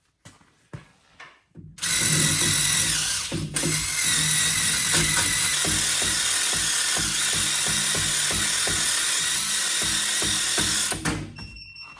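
Aerosol can of CRC spray cleaner hissing as it is sprayed onto a wheel rim to clean where the balance weights will go. There is a short spray, a brief break, then one long spray of about seven seconds.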